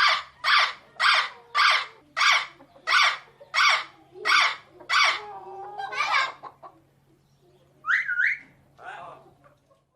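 Parrot squawking: a run of about ten harsh squawks at roughly two a second, then a longer call, a sharp whistled two-note call near the end, and one fainter squawk.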